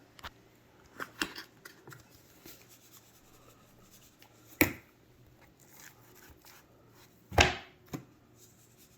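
Handling noises from a dry rub being shaken and worked onto a raw bone-in ribeye steak: scattered light clicks and taps, with two louder thuds about four and a half and seven and a half seconds in.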